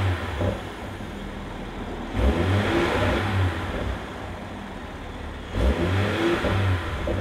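Ineos Grenadier's 3.0-litre B58 turbocharged inline-six, breathing through the stock factory exhaust, idling and blipped twice: one rev about two seconds in and another about five and a half seconds in, each dropping back to idle.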